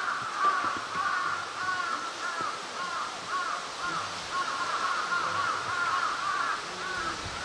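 A bird calling over and over in a rapid string of short, similar notes.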